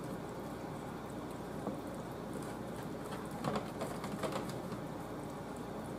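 Faint, soft wet squishing of hands working oiled, seasoned raw chicken legs, pulling the skin back over the meat, with a few light handling sounds over a steady low hum.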